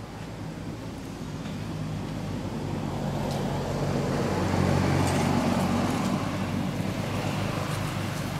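A motor vehicle driving past: its engine and tyre noise grow louder, peak about halfway through, then fade away.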